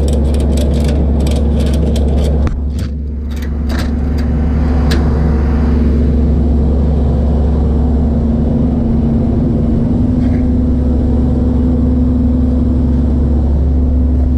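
Tow truck driving on the road, heard from inside the cab: a steady engine and road drone. A quick series of clicks and rattles runs through the first few seconds, and the drone dips briefly about two and a half seconds in before settling again.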